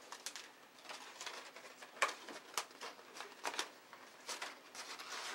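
Stiff drafting-vellum pieces rustling and crackling as they are handled and slotted together, in a string of irregular sharp crinkles and clicks, the sharpest about two seconds in.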